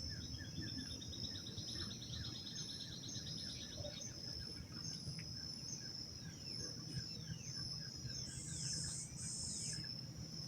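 Insects and birds at daybreak. A steady, high, shrill insect tone runs throughout, with pairs of buzzy pulses near the end. Over it, a bird gives a rising trill in the first few seconds, then several falling whistled notes, while a short note repeats throughout, all over a low rumble of background noise.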